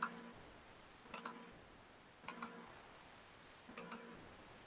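Faint clicks of a computer mouse, in four quick pairs spaced about a second apart.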